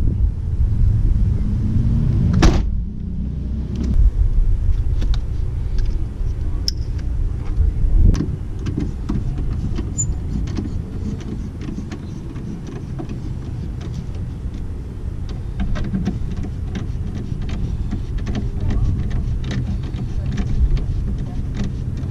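Electrical tape being pulled and wound around a spliced wiring bundle, heard as small clicks and crinkles with a sharp snap about two and a half seconds in, over a steady low rumble.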